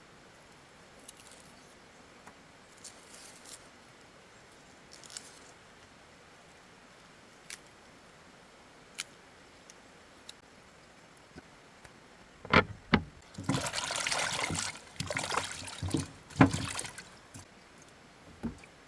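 Scattered faint clicks, then, from about twelve seconds in, a few seconds of liquid splashing and trickling broken by sharp knocks.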